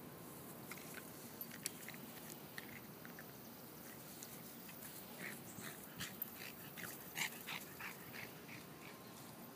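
Boston Terrier puppy giving a run of short, high-pitched cries, sparse at first and coming thick and fast in the second half, with a few sharp clicks among them.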